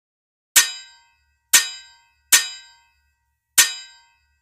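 Sword-clash sound effects: four sharp metallic clangs about a second apart, each ringing out briefly.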